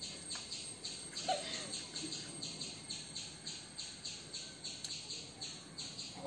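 Steady, rhythmic high-pitched chirping outdoors, about four chirps a second.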